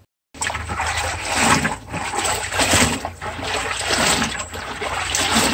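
Water splashing and trickling as a dyed batik cloth is pulled up out of a steel drum of water and drips back into it. The drum is the boiling bath that strips the wax from the cloth.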